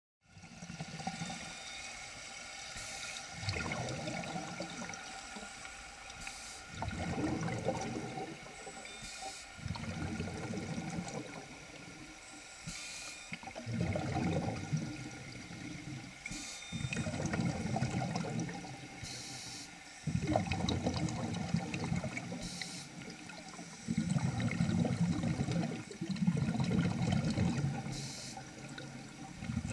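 Scuba breathing heard underwater: exhaled air bubbling out of a regulator in regular gurgling bursts about every three seconds, with a short hiss of inhalation between them.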